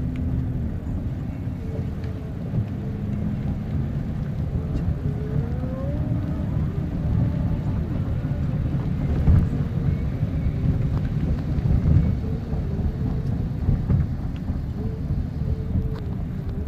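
Car driving in the rain, heard from inside the cabin: a steady low rumble of engine and road noise.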